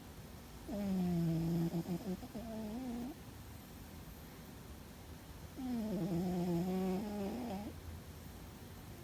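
A sleeping cat snoring loudly: two long snores with a steady low tone, about five seconds apart. Each one breaks briefly and rises in pitch at its end.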